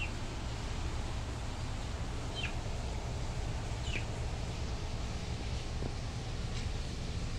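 A bird chirping: three short, high chirps that slide downward, over a steady low background rumble.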